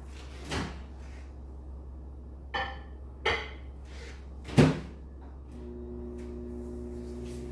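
Microwave oven being loaded and started: a knock, two clinks of a plate, then the door shutting with a thud, the loudest sound. About two-thirds of the way through, the microwave starts running with a steady hum.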